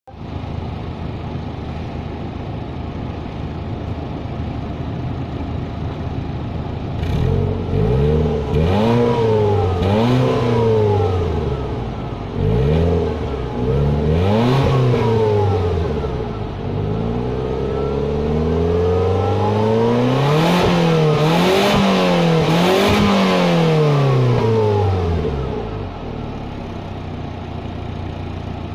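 Ford Fiesta engine heard through its stock exhaust at the tailpipe: it idles steadily, then is revved in several quick blips from about seven seconds in, followed by a longer stretch of revving, before dropping back to idle near the end.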